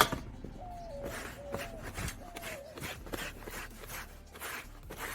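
Quick repeated rubbing strokes, about two a second, of hand work on the vehicle's body, with a faint wavering squeak-like tone through the first half.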